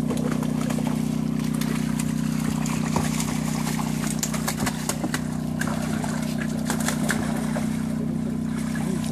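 Steady motor hum from a fish transport truck at a stocking site, with scattered knocks and rattles of handling over it.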